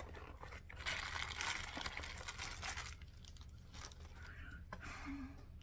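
Packaging crinkling and rustling as a box is unpacked by hand, busiest for the first three seconds, then lighter rustles.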